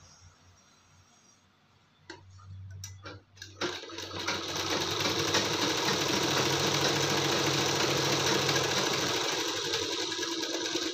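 Electric sewing machine stitching a dart in blouse fabric: after a few handling clicks and a short low hum, it starts about four seconds in and runs steadily at speed, with a fast even needle rhythm.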